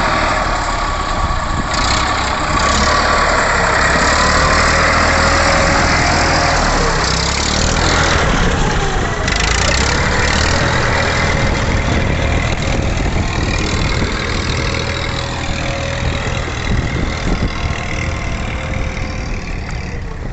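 Massey Ferguson 241 tractor's diesel engine running steadily.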